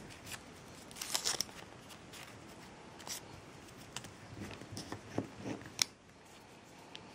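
Handling noise of small parts being worked on by hand: a cluster of scraping clicks about a second in, then scattered light clicks and rustles, with one sharp click near six seconds.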